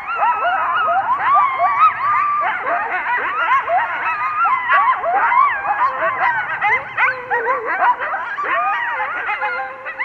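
A group of coyotes yipping and howling together: many overlapping high calls that slide up and down in pitch without a break.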